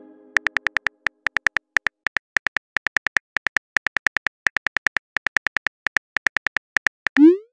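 Phone keyboard typing sound effect: a quick run of short, slightly pitched key ticks, about six a second, as a text message is typed out, ending in a short rising swoop as the message is sent.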